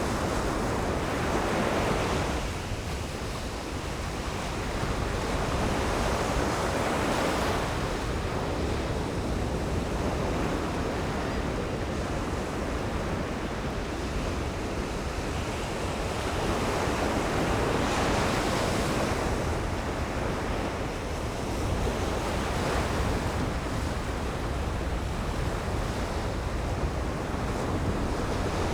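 Ocean surf breaking on a sandy beach, the wash swelling and easing as waves come in every several seconds. A steady low rumble of wind on the microphone runs underneath.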